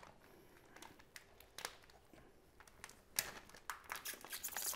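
Faint crinkling of a plastic food bag, with a few sharp crackles, as a knife slits it open down the middle.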